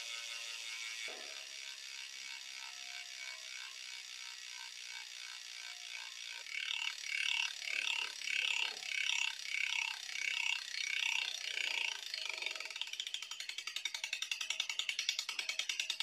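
Syncros rear hub's freehub clicking as the wheel spins, heard through the frame at the rear derailleur. A fine, fast run of clicks at first, then a pulsing beat about twice a second from about six seconds in, then quick, sharp, evenly spaced clicks near the end.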